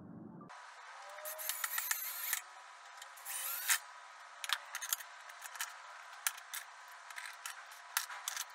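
Cordless drill driving screws into a pine frame held in corner clamps, in short spurts about a second in and again around three and a half seconds. Many short clicks and knocks of the wood, clamps and drill being handled come between the spurts. The sound is thin, with no bass.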